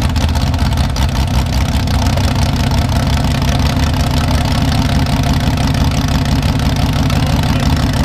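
Mini rod pulling tractor's engine running steadily at a near-constant speed, a loud, dense low rumble.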